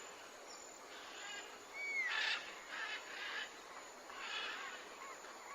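Faint rainforest ambience: a few soft bird calls, one a short curved whistle about two seconds in, over a light steady hiss.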